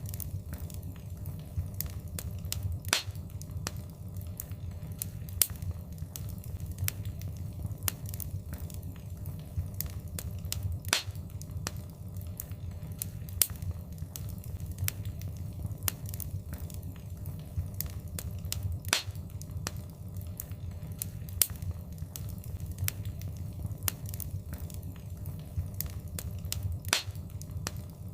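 Wood fire crackling: a steady low rumble of burning with frequent sharp snaps and pops, a few of them noticeably louder.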